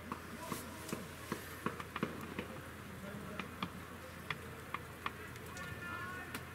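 Raindrops tapping close to the microphone: irregular sharp ticks, a few each second, over a steady low rumble. Faint distant shouts from the pitch near the end.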